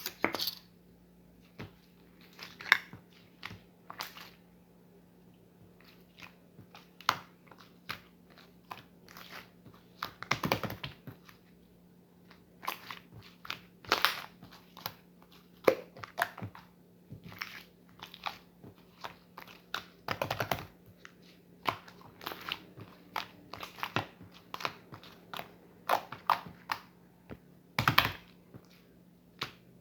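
Slime being squished and kneaded by hand: irregular wet clicks, pops and short crackling bursts as it is pressed and folded, a few louder ones, over a faint steady hum.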